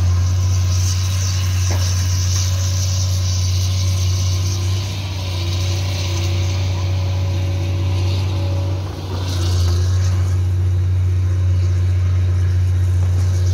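Kobelco hydraulic excavator's diesel engine running steadily, a loud low hum with faint whining tones over it; it drops briefly about nine seconds in.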